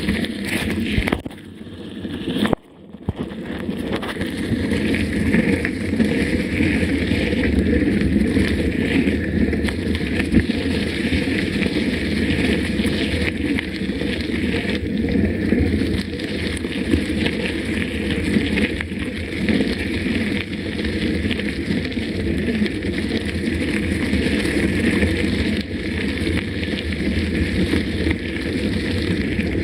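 Mountain bike being ridden on a dirt trail: steady rolling noise, with short dips in level about one and two and a half seconds in.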